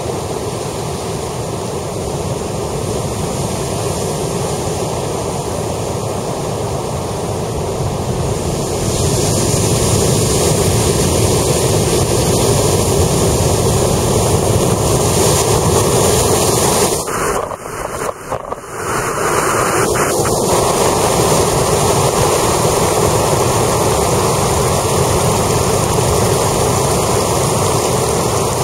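Heavy ocean surf crashing and surging over rocks, a steady loud rush of breaking waves that grows louder about nine seconds in as a big wave floods over the rocks. Around two-thirds of the way through, the sound briefly dips and sputters before the surf rush returns.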